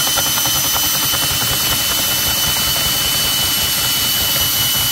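Power drill running steadily at full speed, spinning a 1.5-inch PVC fitting reamer as its cutter scrapes old pipe out of a PVC fitting. A steady high motor whine over a rough grinding noise.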